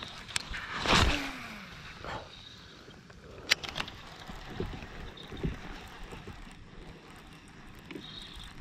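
Close handling noise of hands working the line and tackle at a baitcasting reel: a loud rustling sweep about a second in, a sharp click about three and a half seconds in, and scattered small clicks and knocks.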